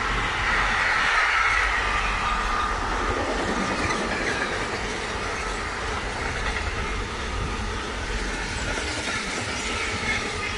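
Container freight train's loaded flat wagons rolling past at speed: a continuous wheel-on-rail roar, with a high hissing band that is strongest in the first few seconds.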